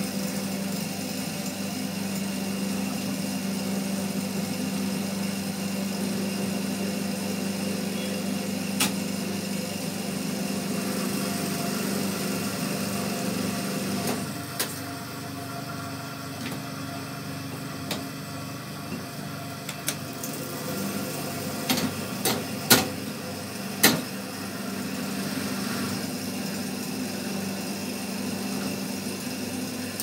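Ceiling fan stator winding machine's motor running with a steady hum as it winds copper wire onto a stator. About halfway through the hum drops away, a few sharp clicks come about three quarters of the way in, and the hum starts again near the end.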